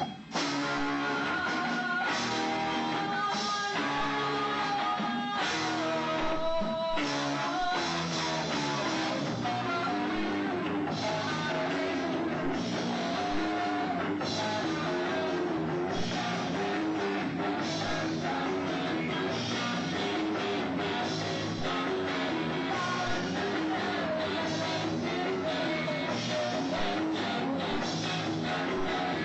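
Live rock band playing a song, guitars to the fore.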